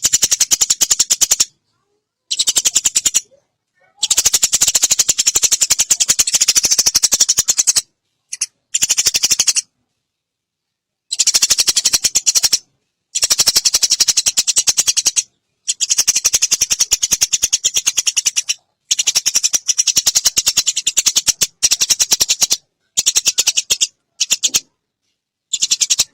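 Eurasian tree sparrow giving its long rapid chattering call: runs of fast, evenly repeated sharp chirps in about a dozen bursts of up to four seconds, broken by short pauses.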